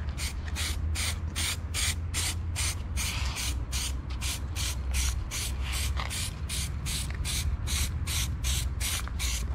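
Aerosol spray can of heat-resistant stove paint hissing in short rapid bursts, about three a second, as a coat goes onto motorcycle exhaust headers. A steady low rumble sits underneath.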